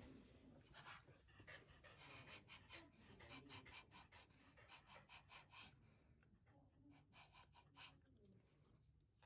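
Small fluffy dog panting faintly and rapidly, about five quick breaths a second, in two runs with a short pause in between.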